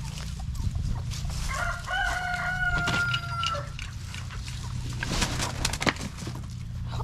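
A rooster crows once, a drawn-out call of about two seconds starting about a second and a half in, holding its pitch and dipping at the end. Scattered rustles and short knocks sound around it, with a steady low rumble underneath.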